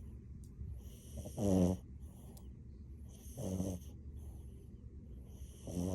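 French bulldog snoring in its sleep: three low, pitched snores about two seconds apart, the first the loudest and the last starting near the end, with soft breathing between them.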